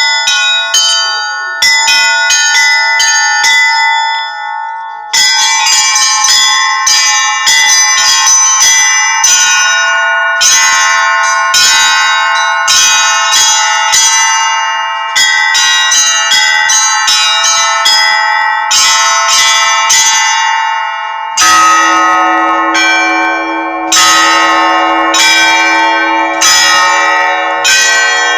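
Orthodox church bells rung in a festal peal: small high bells struck in quick rhythmic patterns over middle bells, breaking off briefly about four seconds in and then resuming. A deeper bell joins about two thirds of the way through.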